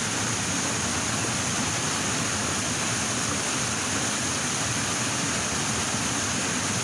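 Steady rush of a mountain stream or small waterfall flowing over rocks, an even hiss that does not change.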